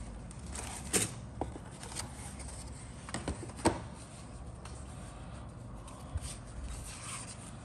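Handling noise of model-kit contents: the cellophane bag of plastic sprues crinkling as it is moved, then paper sheets sliding and shuffling on a cutting mat. A few sharp clicks and taps come through, the loudest about a second in and near the middle.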